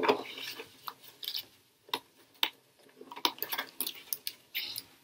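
Handling noise of Scotch tape being pressed down to fix a small ramp in place: scattered clicks, taps and light rustles, with brief crinkly rustling near the start and again near the end.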